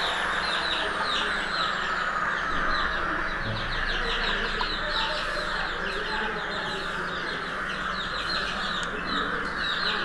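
Young chicks peeping without pause: many short, falling cheeps in quick succession.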